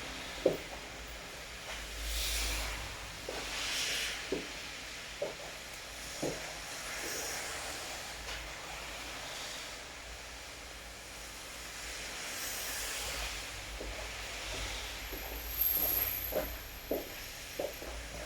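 Rain falling steadily, a constant hiss that swells louder a few times, with scattered heavier drops tapping at irregular intervals.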